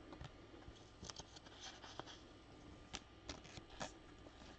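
Near silence, with a few faint clicks and a soft rustle of trading cards and pack wrappers being handled.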